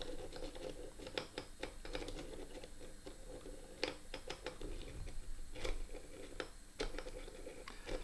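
Small wooden automaton with brass pins being handled and fitted together by hand: scattered light clicks and scratches of wood and metal parts, with a few sharper ticks.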